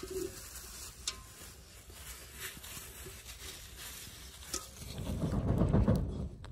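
Gloved hands scrubbing soapy dishwashing liquid over an aluminium pot: a soft, even rubbing with a few light knocks. Near the end comes a louder, low rushing of air as a hand fan is waved over a crackling wood fire.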